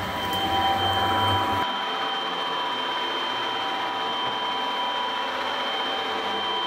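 Home-built CNC plasma table running, with the torch gantry travelling over the steel sheet to its first pierce point before the arc is lit: a steady machine hum with a high whine. The low rumble drops away about a second and a half in.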